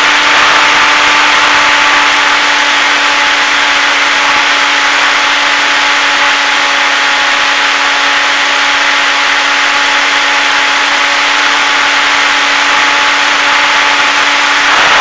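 Electric motor and propeller of a HobbyZone Super Cub RC plane running at a steady pitch in flight, heard from the onboard camera, with air rushing loudly over the microphone.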